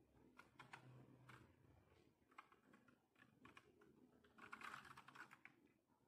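Keys of a SIGNO KB-738 INFESTA mechanical gaming keyboard being pressed: faint, scattered key clicks, then a quick run of keystrokes a little past the middle.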